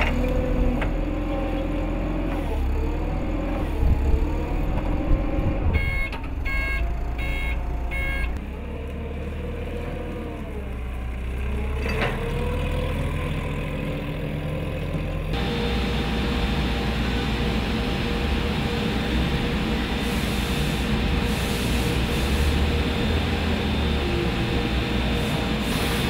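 TCM forklift engine running and revving up and down as the truck lifts and manoeuvres a load, with a backup beeper sounding about two beeps a second for a couple of seconds around a quarter of the way in. Past the middle the sound changes suddenly to a steadier, hissier machine drone with a constant hum.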